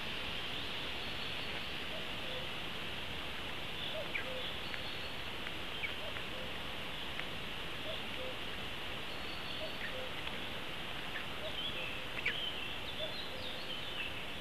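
Steady forest ambience hiss with faint, scattered calls and chirps of distant songbirds.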